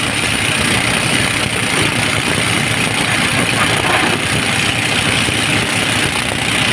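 Hydraulic excavator's diesel engine running steadily, a loud even drone with no knocks or breaks.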